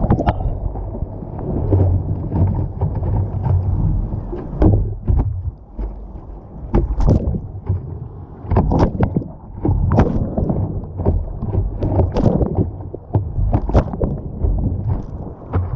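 Slalom kayak running a whitewater course: rushing, churning rapids with a low rumble, broken by irregular sharp splashes of paddle strokes and the boat hitting waves.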